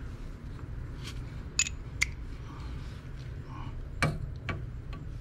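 Metal clicks and clinks from a spark plug socket, extension and new spark plug being handled by hand. There are four sharp ticks, two about one and a half and two seconds in and two more around four seconds in, over a low steady hum.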